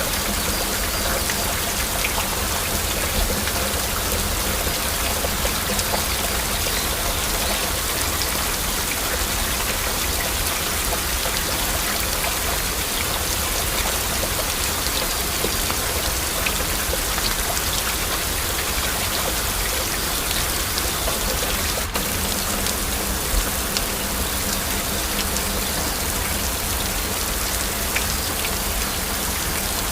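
Heavy rain falling steadily, a dense patter of individual drops over an even hiss, with a momentary dropout about two-thirds of the way through.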